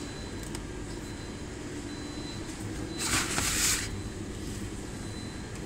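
Steady low hum of store refrigeration, with a brief swish lasting just under a second about three seconds in, from handling at an open chest freezer with sliding glass lids.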